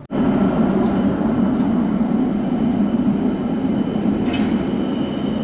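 Electric city tram running on its street rails close by: a steady rolling rumble with a faint high whine over it.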